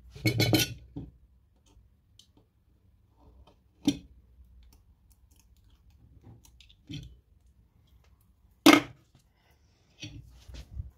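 Small hand tools handled on a tabletop: a foil-wrapped lock impression tool and a snap-off craft knife. A short scratchy rustle at the start, then a few scattered sharp clicks and taps, the loudest about three quarters of the way through.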